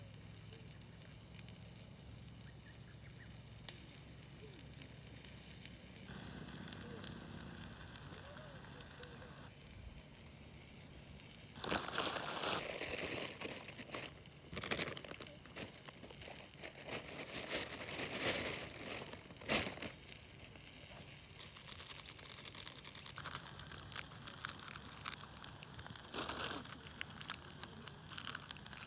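Loud crinkling and rustling of something being handled, in a long spell from about twelve to twenty seconds and again shortly after, over the faint crackle of a campfire.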